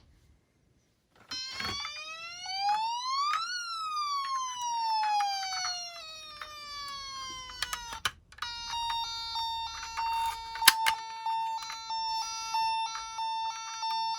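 Electronic siren starting about a second in: one slow wail that rises for about two seconds and falls away over about four, then a steady high tone with a quick stepped warble over it. A few sharp clicks come through.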